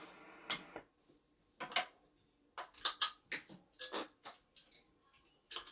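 Hands working at a guitar pedalboard, handling a pedal and its cables: short clicks, knocks and rustles scattered with quiet gaps between them.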